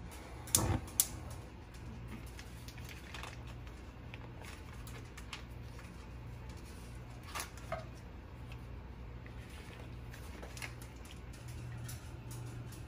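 Gas stove burner knob turned on with a few sharp igniter clicks about half a second in, then quiet handling sounds: a paper butter wrapper and knife, a couple of soft knocks near the middle as the butter goes into a stainless steel skillet, and small taps, over a steady low hum.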